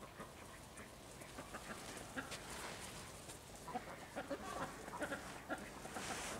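Geese cackling, a scattered run of short calls that grows busier in the second half.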